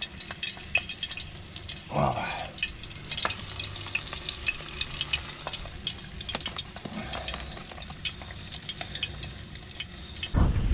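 Breadcrumb-coated pike pieces frying in hot oil in a pan: a steady sizzle full of fast, fine crackling pops.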